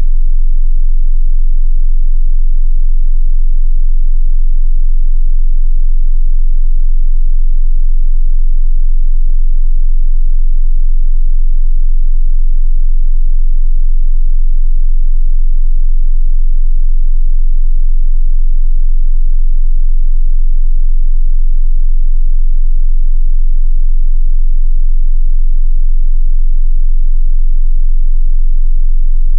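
Continuous 22 Hz sine-wave test tone, a steady, very loud sub-bass hum for testing subwoofers.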